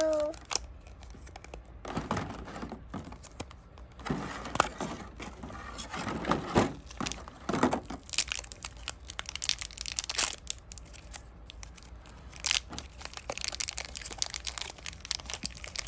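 Plastic packaging crinkling and tearing as a toy is unwrapped, in irregular bursts of crackles and rustles.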